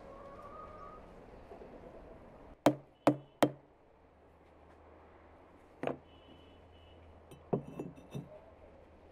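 Rubber mallet tapping bricks into place on the arch of a brick oven: three quick knocks, a single knock a few seconds later, then a few lighter knocks and clicks near the end.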